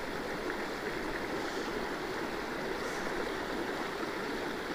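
River water running over a rocky riffle: a steady, even rush.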